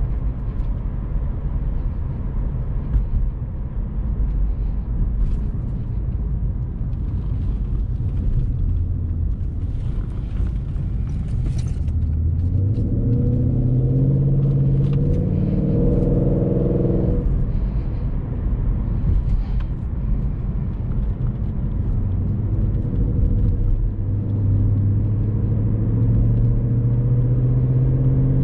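Ford Mustang GT's 5.0-litre V8 and road noise heard from inside the cabin while driving. About halfway through, the engine note climbs and grows louder for several seconds, then drops back suddenly; it climbs again over the last few seconds.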